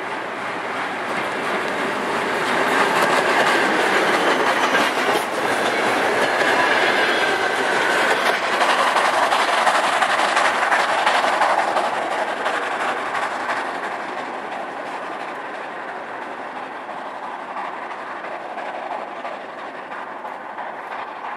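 Steam locomotive L-3653, a Soviet L-class 2-10-0, passing with its passenger coaches, wheels clattering over the rail joints. Loudest through the middle, then fading as the train draws away.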